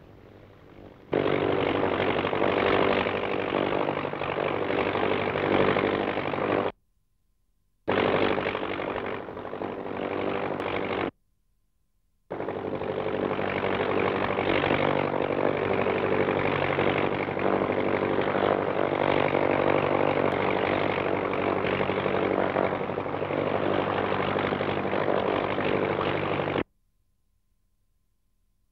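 Tractor engine running steadily with a rough, even drone while the tractor pulls tillage implements through the soil. It starts abruptly about a second in, cuts out twice for about a second each, and stops abruptly near the end.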